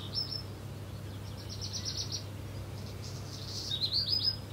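Small birds chirping in three short, fast series of high notes, over a steady low hum.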